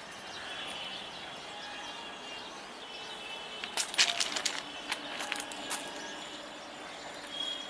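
Open-air railway station ambience with faint chirping and a quick run of sharp clicks about four seconds in.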